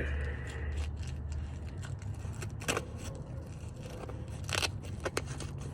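Small clicks and light rattles of mounting bolts and a plastic doorbell wedge mount being handled, with two sharper clicks, over a steady low hum.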